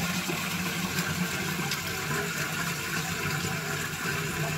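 Toilet cistern flushed with its water supply turned off, so the tank drains into the bowl without refilling: a steady rush of running water.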